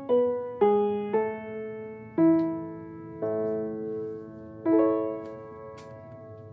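Background piano music: slow, gentle notes and chords, each struck and left to ring and fade.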